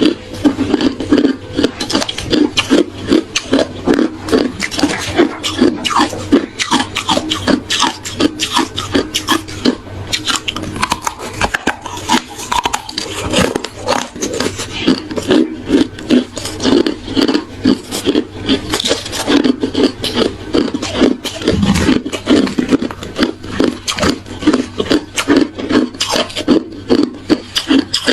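Hard ice being chewed close to the microphone: rapid, unbroken crunching, several crunches a second.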